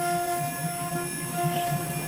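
CNC router running while it cuts foam board, its stepper motors whining in steady tones that stop and start as the axes change direction, with a thin high spindle whine underneath.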